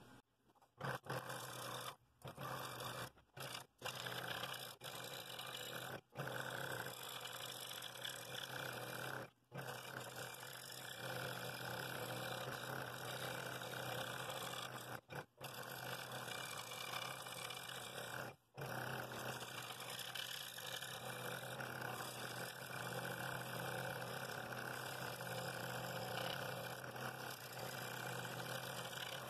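Scroll saw running with its blade cutting through a walnut bowl ring: a steady low buzz with the rasp of the cut. The sound drops out briefly several times in the first twenty seconds.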